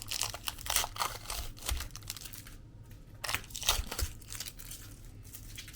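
Crinkling and crackling of tape and plastic wrapping being handled and torn on a lithium-ion battery pack. It comes as dense crackles over the first two seconds and a few more around three to four seconds in, fainter towards the end.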